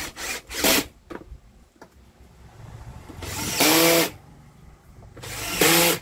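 Cordless drill-driver with a Phillips bit driving screws into a vacuum cleaner's plastic motor housing: two short bursts near the start, then two longer runs, one about halfway through and one near the end, each whining and stopping abruptly.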